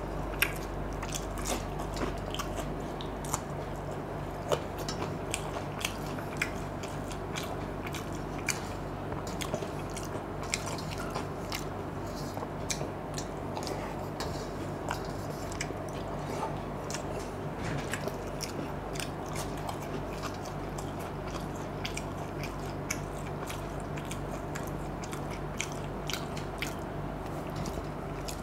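Close-up eating of watery fermented rice (panta bhat) by hand: steady chewing with many small, sharp crunches and clicks scattered throughout.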